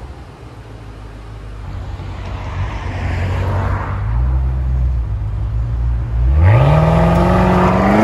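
BMW X6 M Competition's twin-turbo 4.4-litre V8 through a valved Fi Exhaust catback with the valves open: a low engine rumble builds, then about six seconds in the engine goes to hard acceleration, its pitch climbing steadily.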